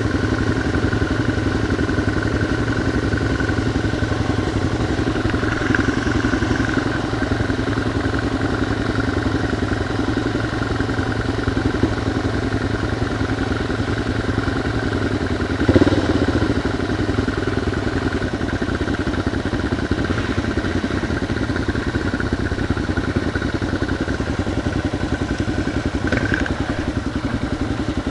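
Dual-sport motorcycle engine running steadily at low trail speed, heard close up from the bike being ridden over rough ground. A sharp knock about sixteen seconds in is the loudest sound.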